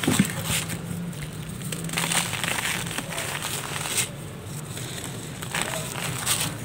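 Dried mud slab being broken apart and crumbled by hand, with crackling snaps of the pieces and gritty crushing. Near the end the dry mud is crushed to powder between the fingers.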